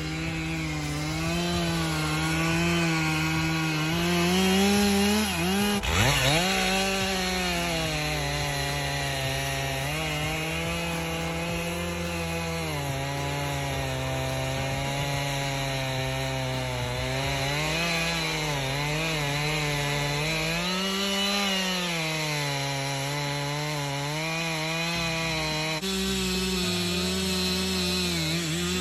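Stihl MS 362 C two-stroke chainsaw running at high revs while cutting wood, its pitch wavering up and down as the chain works through the cut. About six seconds in the engine speed briefly drops and then rises back up.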